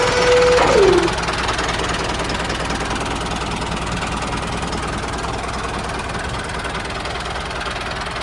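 Tractor engine running steadily. About a second in, a held tone slides down in pitch and fades out.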